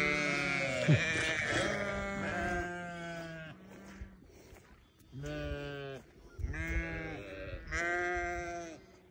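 Sheep bleating: one long, wavering bleat, then three shorter bleats about a second apart.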